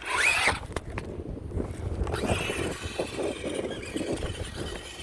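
Electric motor of a Monster Jam Megalodon RC monster truck whining as it is driven, with a short rising-then-falling whine at the start and a faint steady whine from about two seconds in.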